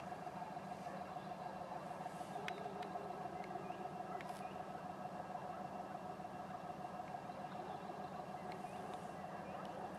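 2TE10M diesel locomotive's two-stroke opposed-piston 10D100 diesel engines working as it starts a freight train away, a steady drone with a high whine over it.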